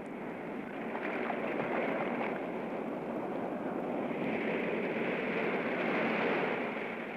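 Surf and wind on an open beach: an even rushing that swells about four seconds in and eases off near the end.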